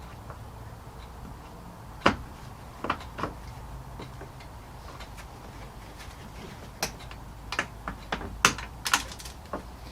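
Irregular sharp clicks and light knocks from hand tools and hard plastic car parts being handled: a single click about two seconds in, a couple more a second later, then a quicker run of clicks and taps near the end.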